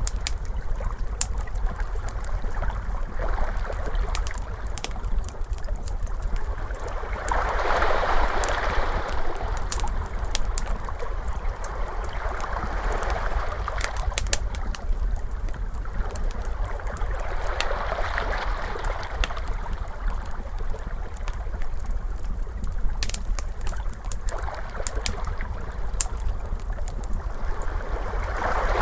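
Ocean waves washing in, swelling and fading every five seconds or so, mixed with a crackling fire's scattered sharp pops and snaps over a steady low rumble.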